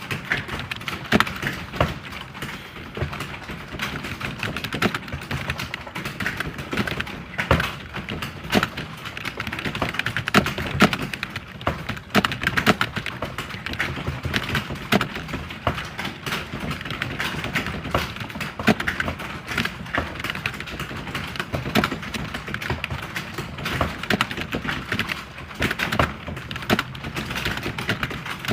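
Computer keyboard typing: a steady run of rapid, irregular keystrokes and clicks.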